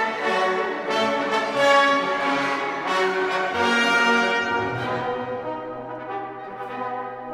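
Orchestral music led by brass, with a long low note held through the second half.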